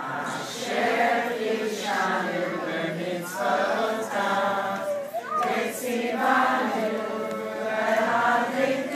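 A crowd of people singing a Hanukkah song together in unison, the phrases rising and falling without a break.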